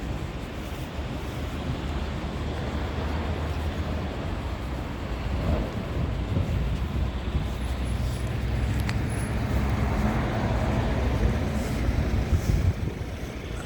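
Freight train hauled by a Bombardier TRAXX class 185 electric locomotive rolling past with a steady low rumble, with wind noise on the microphone.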